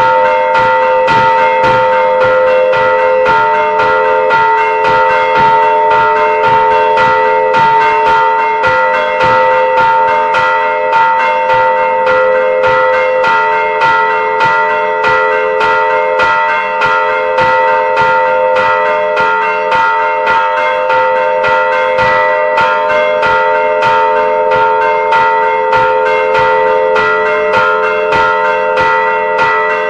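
Church tower bells ringing the noon peal, heard close up inside the belfry: loud, rapid, continuous strikes over a sustained ringing of several overlapping bell tones.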